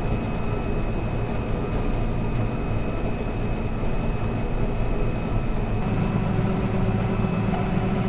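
John Deere 9770 STS combine harvester running while harvesting wheat, heard from inside the cab: a steady low drone with a faint steady high whine over it. The low hum grows heavier about six seconds in.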